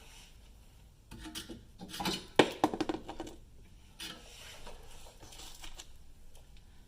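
Metal brake parts being handled, scraping and rubbing, with a sharp metallic clink about two and a half seconds in followed by a brief rattle.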